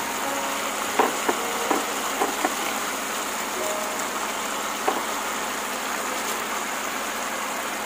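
Stir-fry of pork and vegetables sizzling steadily in the pan as a heap of cut cabbage goes in. A few light clicks and knocks sound about a second in, around two and a half seconds, and once more near five seconds.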